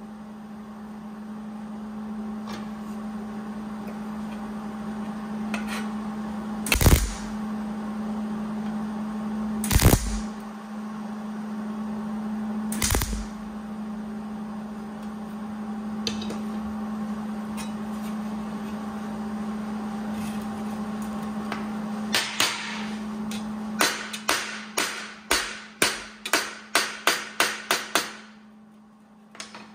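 Three short MIG tack welds on a sheet-steel headlight bucket, each a brief crackle, a few seconds apart. Then a run of about a dozen sharp hammer blows on metal, coming faster toward the end, over a steady hum.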